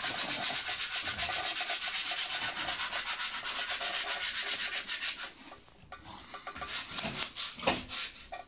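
Antifreeze draining from an ATV's lower radiator hose into a cut plastic bottle and pouring into a metal basin: a rapid, even pulsing splash that stops about five seconds in, followed by a few scattered knocks.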